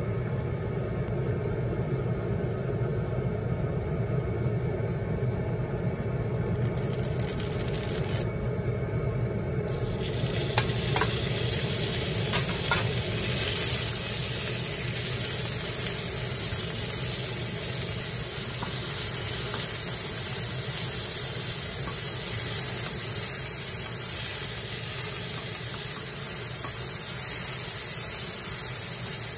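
Thin-sliced pork sizzling in hot oil in a frying pan while it is spread and stirred with chopsticks and a spatula. The sizzle comes up about ten seconds in as the meat goes in, with a few clicks of the utensils against the pan.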